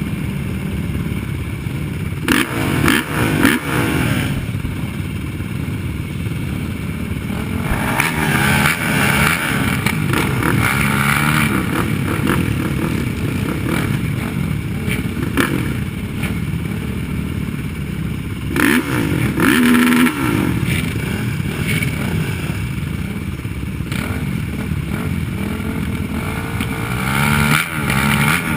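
Racing quad (ATV) engines running hard, with the engine pitch climbing under acceleration several times and dropping back between.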